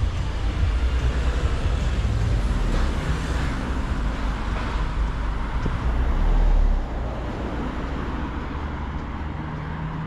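Street traffic noise with a low rumble from nearby motor vehicles; the rumble drops away about seven seconds in, leaving a steadier, quieter traffic hum.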